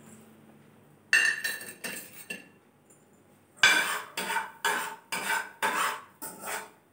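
Steel spoon knocking and scraping against a metal kadai as salt is stirred and dry-roasted in it. A few knocks come about a second in, then steady stirring strokes about twice a second from halfway.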